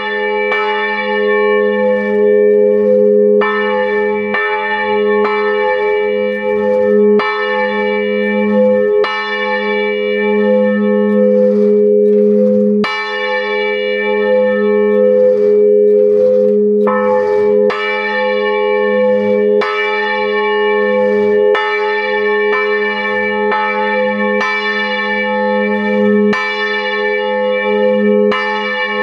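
Bronze church bell swung in full peal and heard from inside the belfry, close and loud. The clapper strikes about once a second, starting suddenly with the first stroke, over a continuous ringing with a deep hum underneath.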